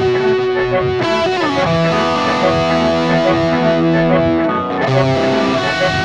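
Electric guitar played through distortion and effects, ringing held chords and notes, with one note sliding down about a second and a half in.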